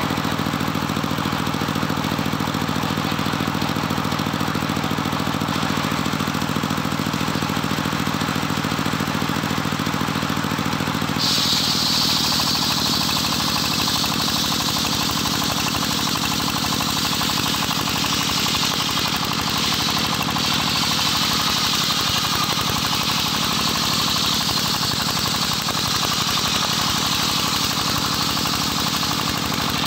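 Engine-driven homemade circular saw ripping a johar log: the engine runs steadily throughout, and about eleven seconds in the blade bites into the wood, adding a loud high-pitched cutting hiss over the engine that carries on through the cut.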